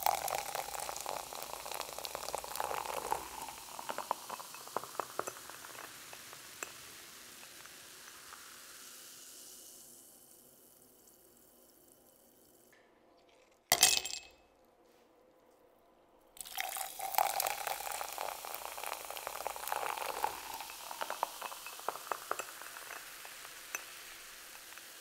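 Cola poured from a can into a glass tumbler, splashing and clinking, then fizzing as the bubbles pop and slowly die away. About 14 seconds in, a can is snapped open with a short, loud crack and hiss, and a second pour and fizz follow.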